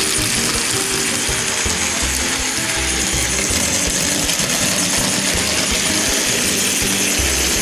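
A Plarail toy train's battery motor and plastic gearbox running with a steady, loud whirring grind, during a power check after repair.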